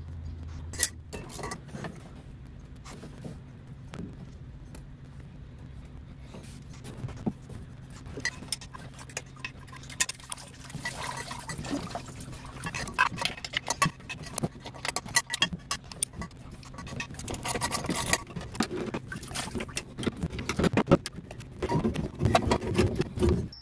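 Metallic clicks and clinks of hand tools and loosened parts while the water pump is unbolted and worked off a Sunbeam Alpine engine, growing busier in the second half, over a steady low hum.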